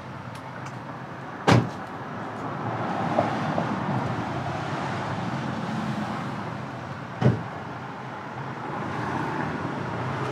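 Street traffic: a car passing, its tyre and engine noise swelling and fading. Two sharp knocks, one about a second and a half in and one about seven seconds in.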